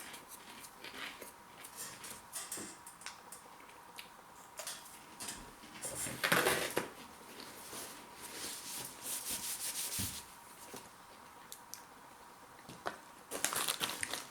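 Crunching and chewing of baked marrowfat-pea snacks, with scattered crackles and a louder crunch about six seconds in and another near the end.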